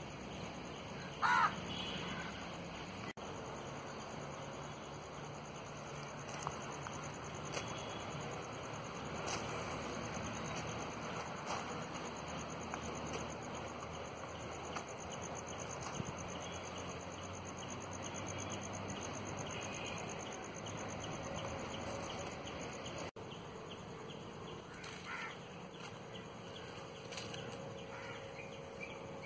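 Crow cawing outdoors: one loud caw about a second in and fainter calls near the end, over steady open-air background noise.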